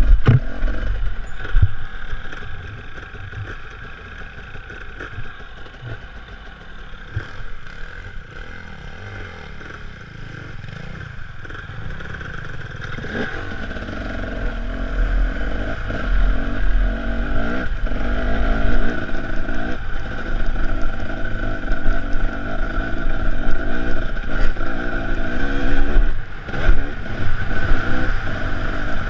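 Enduro dirt bike engine from the onboard camera's own bike, ticking over at low throttle with knocks and rattles over rocky ground, then opening up and running harder from about halfway through.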